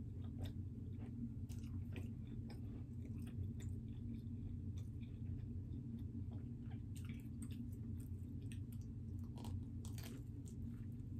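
A person chewing pepperoni pizza, with many small wet mouth clicks, then biting into a slice near the end, over a steady low hum.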